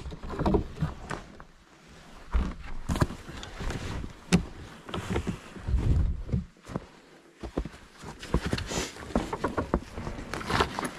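Irregular knocks, thumps and rustling of a person moving about in a small wooden hide, with clothing brushing close to the microphone.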